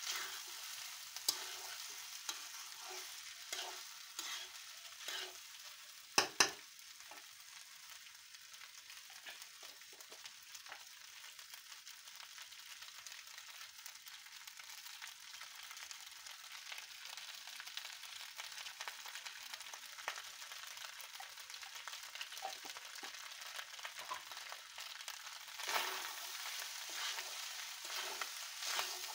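Panta rice frying in an oiled pan with a steady sizzle, stirred and scraped with a metal spatula; two sharp knocks about six seconds in, and the stirring strokes come thicker near the end.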